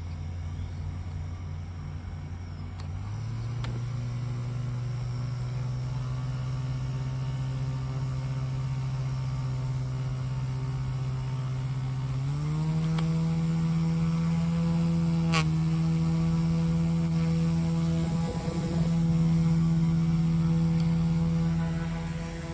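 Small rechargeable portable fan running with a steady motor-and-blade hum, stepping up in pitch and loudness twice, about 3 seconds and about 12 seconds in, as it is switched to its next speed setting. A single click comes about 15 seconds in.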